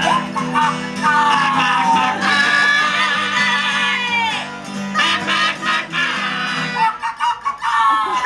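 Acoustic guitar strumming a country tune under a sung chorus in which the voices slide down in pitch, with a short break in the singing about seven seconds in.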